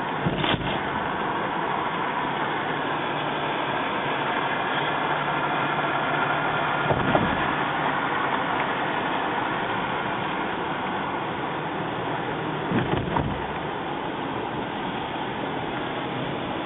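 Steady road and engine noise heard from inside a moving car, with a few brief thumps: about half a second in, around seven seconds, and twice near thirteen seconds.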